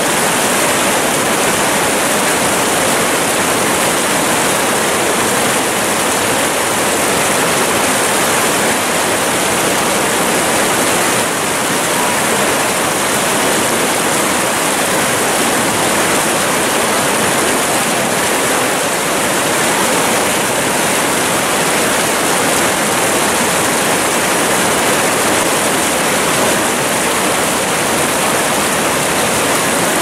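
Ocoee River whitewater rapid rushing, a loud, steady wash of churning water.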